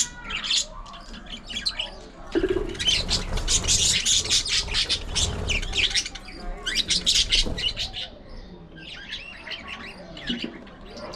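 Budgerigars chattering with dense, rapid chirps. The chatter grows loud about two seconds in and thins out near the end.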